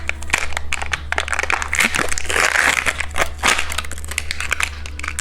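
Plastic packaging crinkling and rustling in the hands as it is opened to get at a surprise-egg toy, loudest about two to three seconds in.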